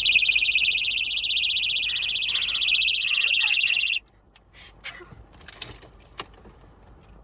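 Birdie personal safety alarm sounding its shrill, rapidly pulsing siren, which cuts off suddenly about four seconds in as its top is pushed back in to silence it. Faint clicks and rustling follow.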